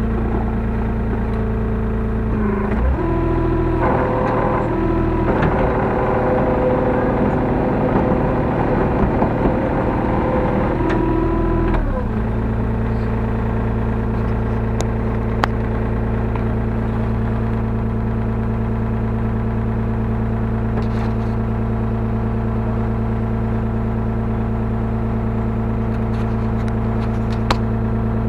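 Hyundai R35Z-9A mini excavator's diesel engine running, heard from inside the cab. For several seconds early on, the note shifts up and down in steps as the hydraulics work under load. It then settles to a steady drone, with a couple of sharp clicks later.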